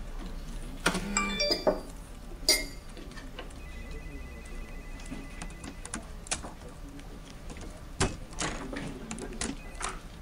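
Scattered clicks and taps from a computer keyboard and then a smartphone being handled, with a few short electronic beeps and a thin steady tone in the middle.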